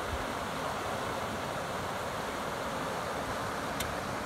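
Steady rush of river water tumbling over a shallow rocky rapid. A brief click comes near the end.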